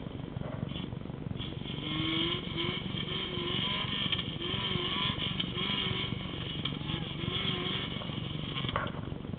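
A faint engine revving up and down over and over, over a steady low rumble, with a sharp knock near the end.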